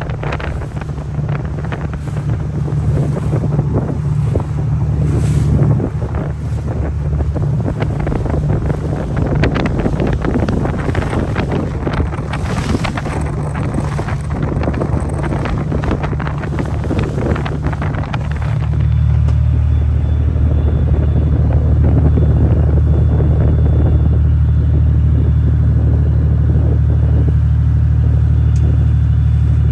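Boat's diesel engine running with a steady low drone while wind buffets the microphone. About two-thirds of the way through, the wind noise drops away and the engine drone becomes louder and steadier.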